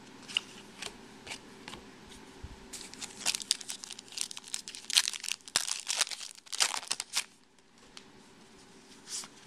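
Foil wrapper of a Topps Chrome trading-card pack being torn open and crinkled by hand: a few scattered crackles, then a dense run of crinkling from about three seconds in to about seven seconds.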